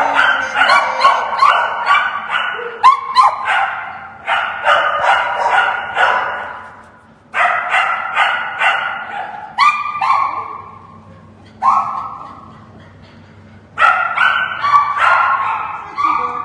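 Dog barking repeatedly, loud, in about six runs of quick barks with short pauses between them.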